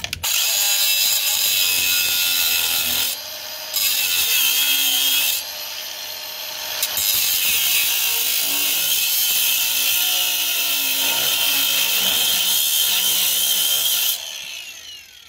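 Angle grinder with an abrasive disc cutting through a rusted exhaust pipe joint whose bolts are seized. It gives a loud, steady high whine with a grinding hiss, dipping quieter twice for a moment, then stops about a second before the end and winds down with a falling whine.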